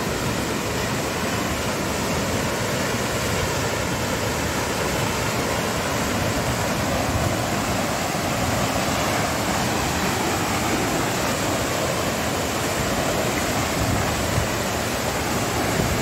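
Waterfall's falling water rushing steadily, an even, unbroken noise.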